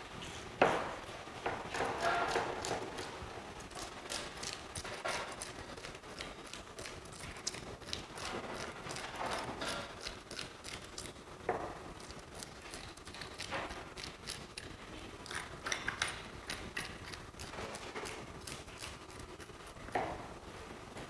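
Kitchen knife scraping the scales off a whole fish on a plastic cutting board: irregular short scraping strokes and clicks, the loudest a sharp knock about half a second in.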